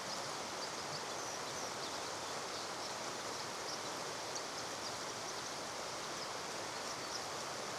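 Steady rush of flowing stream water, with the thin high chirps and twitters of small songbirds scattered over it.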